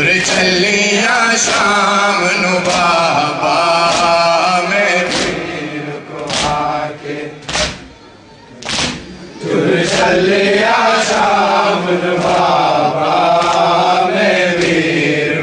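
A solo voice reciting a noha, a Shia lament, in a slow chanting melody with long wavering held notes. A few sharp slaps come in the pauses near the middle.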